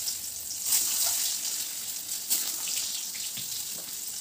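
Peeled boiled eggs frying in hot oil in a steel kadhai: a steady sizzle with crackling, as more eggs are dropped into the oil.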